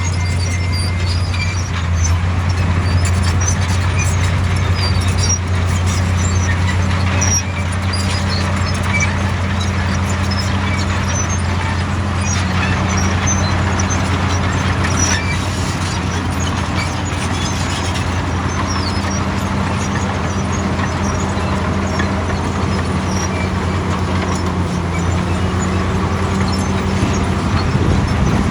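Diesel engine of a heavy compactor or roller running steadily at a constant speed, a deep, even drone with light clatter over it.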